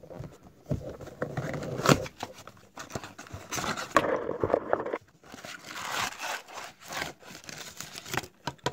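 Cardboard trading-card blaster box being opened by hand, with its flaps pulled open and the paper-sleeved relic card and packs slid out: irregular rubbing, scraping and crinkling of cardboard and paper, with a sharp snap about two seconds in.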